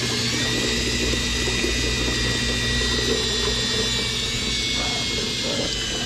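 Cordless DeWalt drill spinning a drill-driven water pump with a steady motor whine, the pitch rising a little at the start, while water from the return hose splashes into a bucket. The pump is pushing water through the heater's lines to purge the air.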